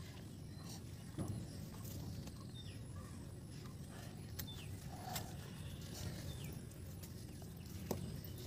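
Cooked banana-leaf wrapping crinkling and rustling as it is pulled open by hand, with a few faint clicks, over outdoor background hum. Short high falling whistles come every couple of seconds.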